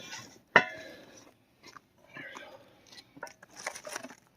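A hammer strikes a brass drift, driving a new U-joint bearing cap into the driveline yoke: one sharp metallic hit about half a second in that rings briefly, followed by fainter taps and scraping of metal parts.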